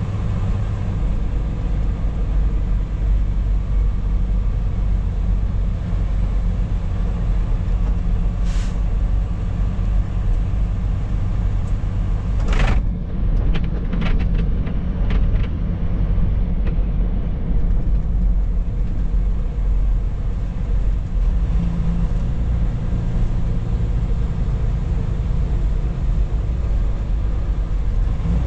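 Semi-truck diesel engine running as the truck rolls slowly, heard from inside the cab as a steady low rumble. Several short hisses stand out around the middle.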